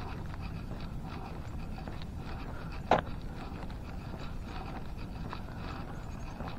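Footsteps walking on an asphalt path over a steady low rumble, with one sharp click about three seconds in.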